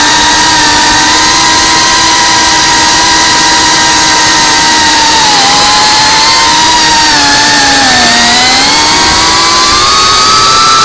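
FPV quadcopter's brushless motors and propellers whining loudly as it flies, recorded close up by the onboard camera. The pitch holds fairly steady, dips about eight seconds in, then rises again near the end.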